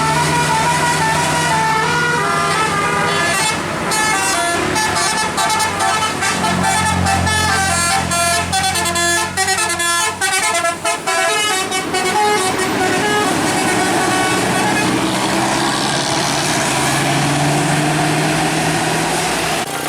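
Bus telolet 'basuri' multi-tone musical horn playing a tune of stepping notes, with rapid short notes in the middle, over the bus engine running. The tune stops about twelve seconds in, leaving the engine.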